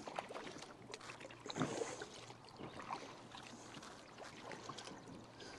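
Faint splashes and drips of a double-bladed paddle dipping in and out of lake water during forward strokes, with a slightly louder splash about one and a half seconds in.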